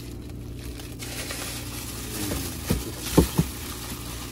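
Plastic bags of frozen bait crinkling and rustling as hands rummage through them in a chest freezer, with a few dull knocks of the frozen blocks in the second half, over a steady low hum.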